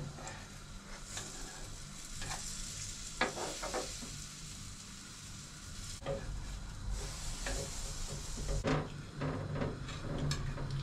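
Oat pancakes frying in coconut oil in a pancake pan, with a steady sizzle. A metal utensil taps and scrapes against the pan several times as the pancakes are loosened and turned.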